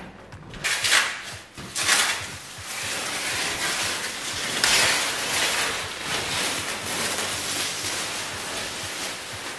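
Plastic sheeting being peeled and pulled off window frames: a continuous crinkling rustle, with louder rips about one and two seconds in.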